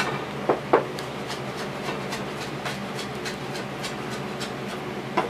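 Light clicks and taps scattered over a steady low hum, with two sharper knocks about half a second in and a louder knock right at the end.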